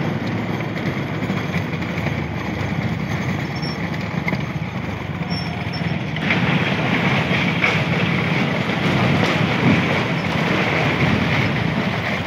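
Steady running noise of motorcycles ridden close behind bullock carts: engine and wind rushing over the microphone, with the clatter of the carts' wooden wheels on the road. The noise gets louder about six seconds in.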